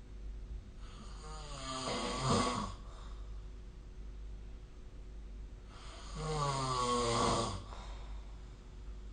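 A person snoring: two long snores about five seconds apart, each lasting about two seconds, with a pitched, wavering rasp.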